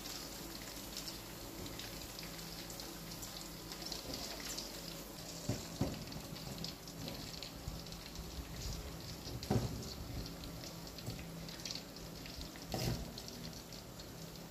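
Chicken pieces frying in hot oil in a wok, a steady sizzle with fine crackling. A few soft knocks about a third of the way in, halfway and near the end.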